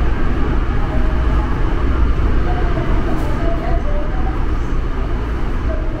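Seoul Subway Line 8 train running, heard from inside the passenger car: a steady, deep rumble of wheels on track.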